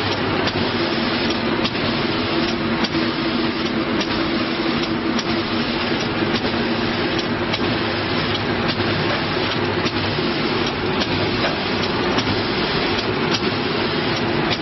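Bottle shrink-wrapping machine running: a steady mechanical hum and rush of noise, with light clicks every second or so.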